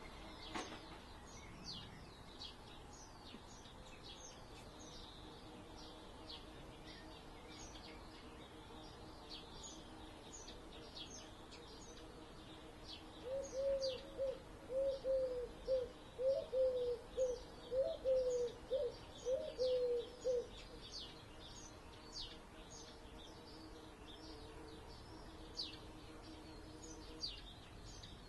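Rural morning ambience: small birds chirping and singing with short high notes throughout, over a faint steady hum of distant traffic. About halfway through, a louder, lower-pitched call repeats about a dozen times over some seven seconds, then stops.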